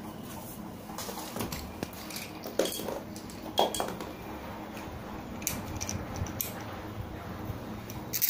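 Metal parts of a kerosene Stirling engine fan being handled and fitted onto its cast-metal stand: scattered clinks and knocks, the loudest about three and a half seconds in, over a steady low hum.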